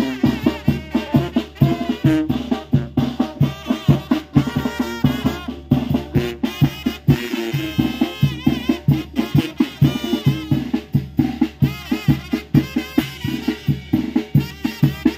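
Mexican brass band (banda) playing live: trumpets and low brass such as tuba and baritone horn carry the tune over a bass drum with a mounted cymbal, which beats a quick, steady rhythm.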